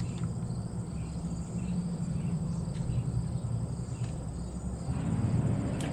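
Closed-face spincast fishing reel being cranked in a steady, rapid whirring tick as the line is wound in against a spinnerbait snagged in a tree.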